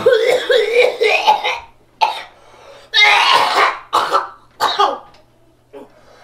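A man coughing hard from bong smoke: a long, rasping hacking fit at the start, then single harsh coughs about a second apart.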